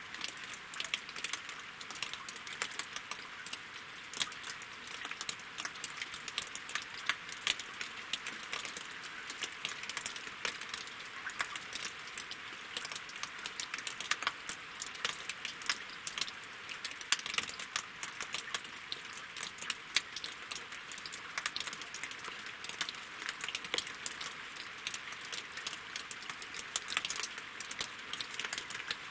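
Winter rain falling on lake water and wooden logs: a steady, dense run of small drop clicks with no let-up.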